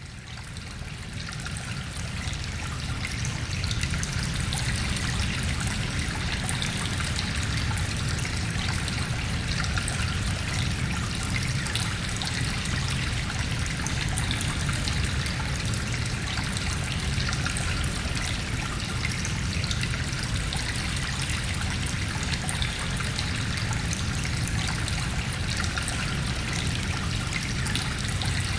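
Stream of water trickling and flowing in a cave, echoing, over a steady low rumble of wind from outside. It fades in over the first couple of seconds, then holds steady.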